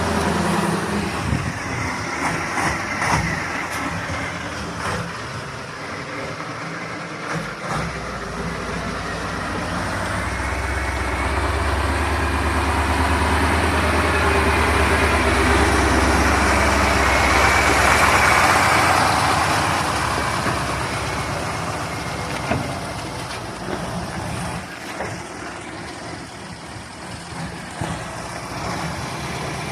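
KamAZ truck's diesel engine running steadily, growing louder for about ten seconds in the middle and then settling back.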